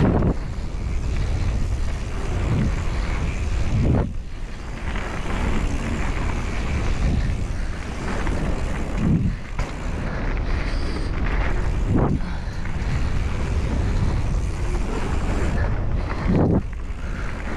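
Mountain bike descending a dry, sandy dirt trail: tyres rolling and the bike rattling, with wind rushing over the microphone and several thumps as it hits bumps along the way.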